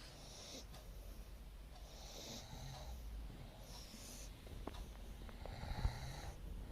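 Snoring: four slow, hissy breaths, about one every two seconds.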